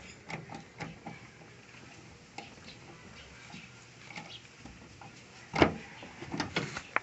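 Scattered clicks and knocks of a tool being worked through a hole under the rear door of a Toyota van, probing the door's lock mechanism to open it without a key. A loud knock comes about five and a half seconds in, followed by a quick run of clicks.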